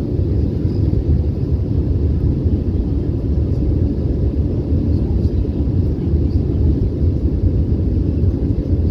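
Airbus A320 cabin noise heard from a window seat: a steady low rumble from the engines and the air rushing past the fuselage.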